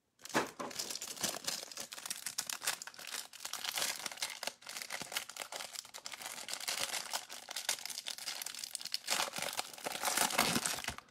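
Plastic card-pack wrapper crinkling and tearing as a trading-card hanger box is opened, a steady dense crackle with small rustles and clicks.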